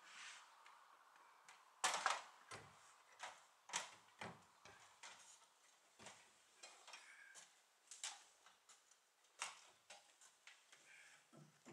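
Faint, scattered knocks and clunks of timber rafters being handled and fitted on a shed's roof frame, irregular rather than a steady hammering rhythm, the loudest about two seconds in.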